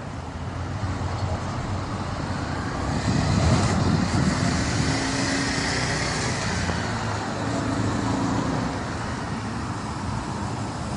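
Motorcycle engine running as the bike is ridden, getting louder about three seconds in and then settling to a steady drone.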